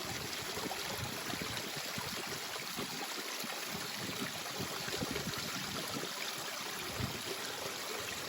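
Water welling up and trickling, a steady, unbroken sound of running water.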